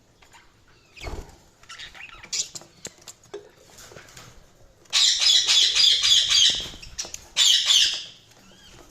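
Budgies chattering and squawking. Scattered soft chirps give way to two loud bursts of rapid high-pitched chatter, one about five seconds in and a shorter one near the end. There is a low thump about a second in.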